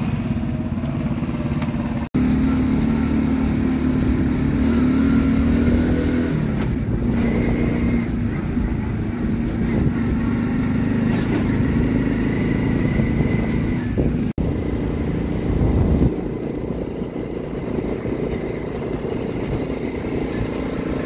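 Motorcycle engine running under way, with wind rumbling on the microphone; the engine note rises and falls a little as the rider changes speed. The sound drops out for an instant twice.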